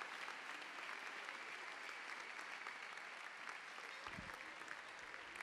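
Large audience applauding steadily after a speech, with a brief low thump about four seconds in.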